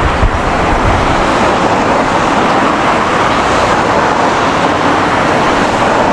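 Steady city-street traffic noise: road vehicles passing, with a low rumble near the start.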